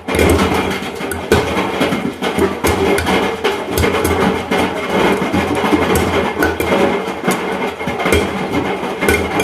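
Large ice blocks tumbling in a washing machine drum, knocking and banging irregularly against the steel as it turns. These are the impacts that dented the drum.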